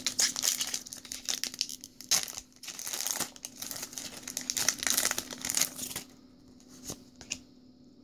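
Foil wrapper of a Pokémon XY Evolutions booster pack being torn open and crinkled: dense crackling for about six seconds, then a few soft clicks.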